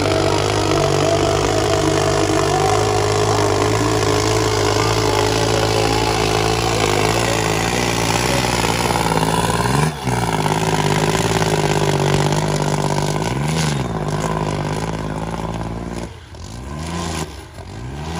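New Holland 3630 tractor's three-cylinder diesel engine running hard under heavy load, pulling a 12x12 disc harrow through soft soil. Near the end its revs drop and climb back up twice.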